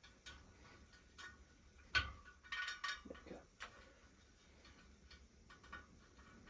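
Scattered light metallic clicks and ticks from a replacement spoke being worked into a motorcycle wheel, with one sharper click about two seconds in and a quick cluster of clicks just after.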